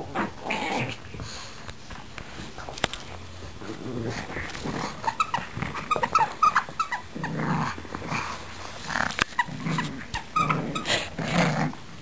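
Pugs growling in play as they wrestle over a toy, in irregular bursts that come thicker in the second half.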